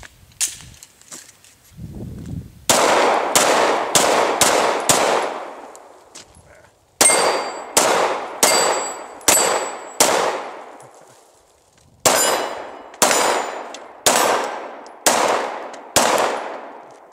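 Glock 19 Gen 4 9mm pistol fired one-handed with the left hand: about sixteen shots in three quick strings, each followed by the ringing clang of hit steel plates. Every round cycles without a hang-up despite the weak-hand grip, which is meant to provoke a limp-wrist malfunction.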